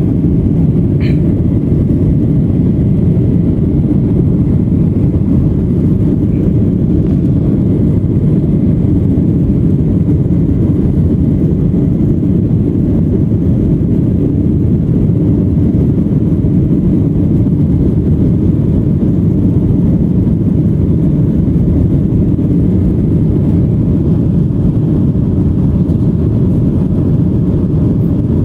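Steady, loud cabin noise of a Boeing 737-900 in flight: its CFM56-7B engines and rushing air are heard through the fuselage as a low, even rumble that does not change.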